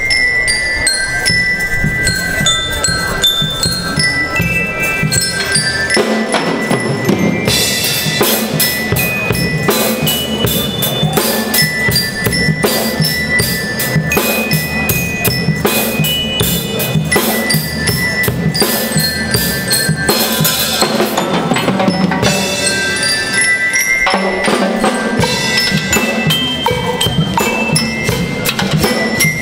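School rhythm band playing: a high, bell-like melody on bell lyres (glockenspiels) over snare drums, bass drum and a drum kit. The drums come in hard about seven seconds in, ease back for a few seconds past the twenty-second mark, then come in full again.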